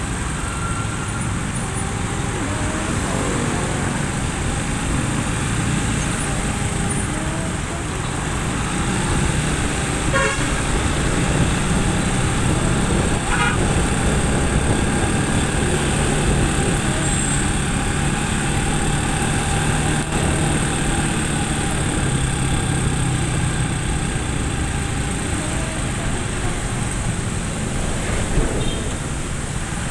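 Steady engine hum and tyre noise of a motorcycle or scooter riding through slow, dense traffic on a wet road, with the surrounding cars and scooters running close by and a horn sounding now and then.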